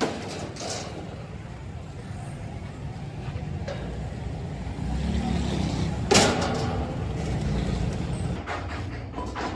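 A steady low machine rumble that grows heavier about four seconds in, with one loud knock about six seconds in and quick clicking near the end.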